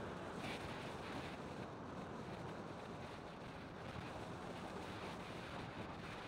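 Steady wind rush over the microphone, mixed with the road and engine noise of the moving vehicle that carries the camera.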